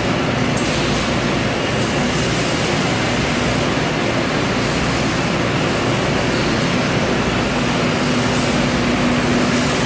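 A walk-behind industrial floor-cleaning machine running steadily, a constant mechanical rush with a faint hum.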